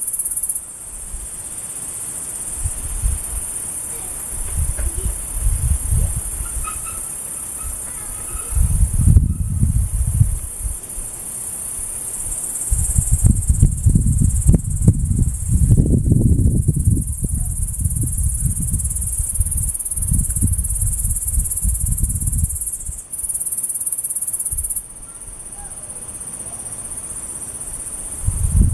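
Insect calling with a continuous high-pitched buzz, which the recorder asks might be a kutsuwamushi katydid (Mecopoda niponensis). Low rumbling on the microphone comes and goes underneath.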